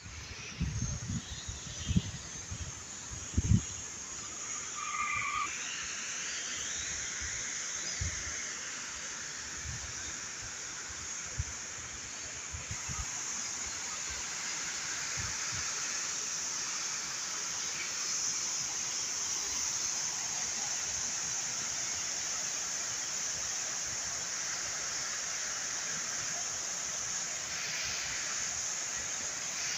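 Outdoor fountain water spraying and splashing into its basin: a steady hiss that grows slightly louder as it draws nearer. A few low thumps sound in the first few seconds, and a brief chirp comes about five seconds in.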